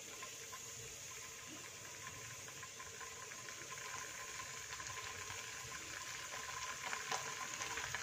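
Paneer cubes sizzling gently in hot desi ghee in a frying pan, the sizzle and fine crackling growing steadily louder as more cubes go in.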